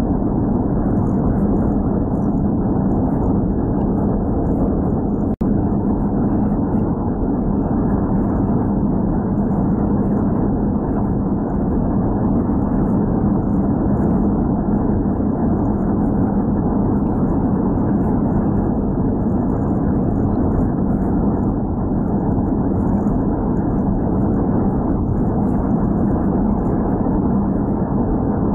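Steady in-cabin drone of a car cruising on the interstate, tyre and engine noise heard from inside the car, with a brief dropout about five seconds in.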